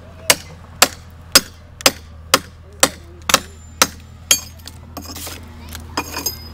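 Hand hammer striking a steel chisel held against the edge of a flagstone slab, dressing the stone: sharp, evenly spaced strikes about two a second, then a few lighter, irregular knocks near the end.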